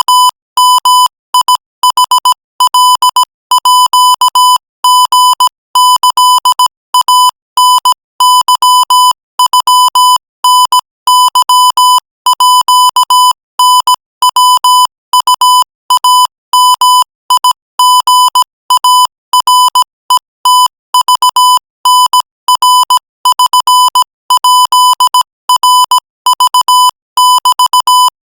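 Morse code sent at 20 words per minute: a single buzzy beep keyed on and off in short dots and longer dashes, with brief gaps between letters and words.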